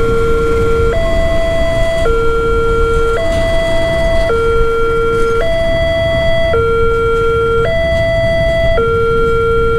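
Electronic two-tone warning alarm of a railway level-crossing signal, alternating between a lower and a higher tone about once a second. Underneath it, the low rumble of a passenger train running over the crossing.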